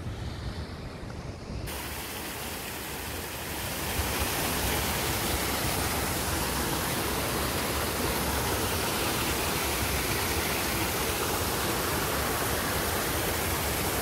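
Small rain-fed waterfall rushing down between rocks: a steady, dense hiss of falling water that comes in suddenly about two seconds in and grows louder a couple of seconds later.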